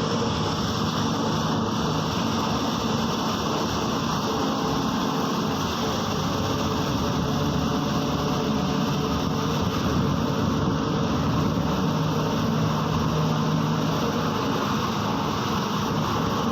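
Steady running noise heard from inside a MAZ-103 city bus: an even low engine hum with a few steady tones, under a wide haze of cabin and running noise.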